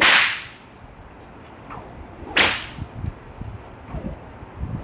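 Bullwhip overhead cracks: a sharp crack right at the start, the louder of the two, and a second about halfway through. The whip is being thrown to show the common mistake in timing and force, and it cracks anyway.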